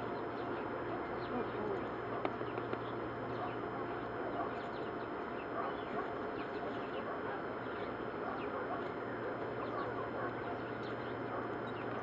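Birds chirping many times over a steady rushing noise.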